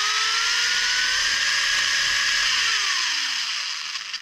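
Latrax Teton RC truck's electric motor and drivetrain whining under throttle. Its pitch climbs over the first second or so and holds high at full speed, then winds down from about two and a half seconds in as the throttle is released, fading out near the end.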